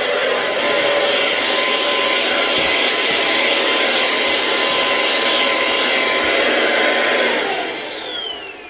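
Vacuum cleaner running with a steady whine, then switched off about seven seconds in, its motor winding down with a falling pitch.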